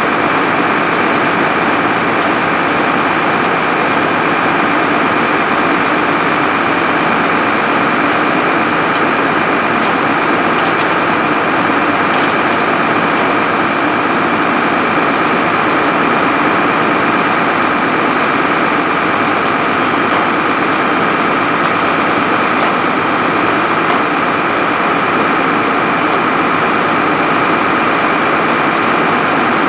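Fire engine running steadily while supplying hose lines: a constant engine drone with a steady high whine over it.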